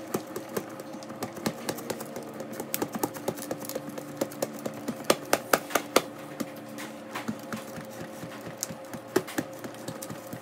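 Cheese being grated by hand on a stainless steel box grater resting on a plastic plate: quick, irregular scraping strokes with sharp clicks as the grater knocks against the plate. A steady low hum runs underneath.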